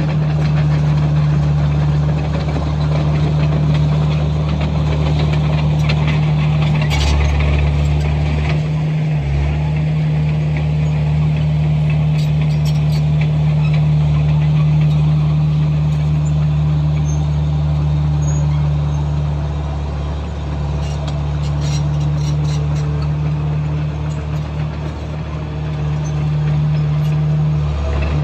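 Komatsu bulldozer's diesel engine running steadily under load while grading dirt, with a short change in its note and a high scraping sound about seven seconds in.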